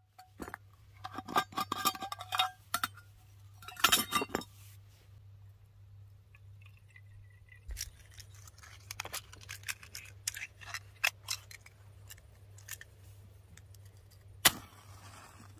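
Small hard objects clinking and clicking as they are handled, several at a time in the first few seconds with some brief ringing, then scattered single clicks and one sharp click near the end. A steady low hum runs underneath.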